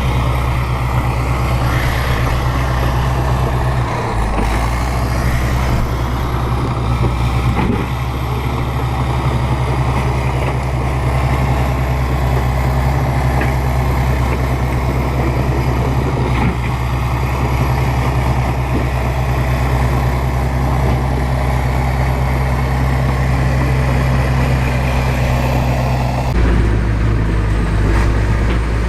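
Bulldozer's diesel engine running steadily, with its low note changing abruptly about four seconds in and again near the end.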